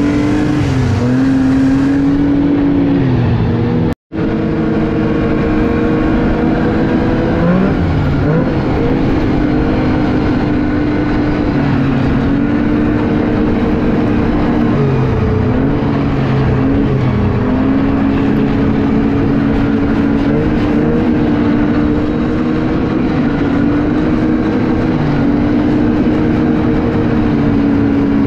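Snowmobile engine running while riding along a trail, its pitch rising and falling as the throttle is opened and eased. The sound cuts out for an instant about four seconds in.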